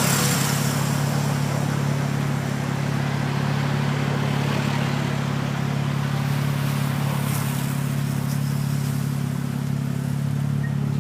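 A motor vehicle's engine running steadily: a constant low hum over an even hiss.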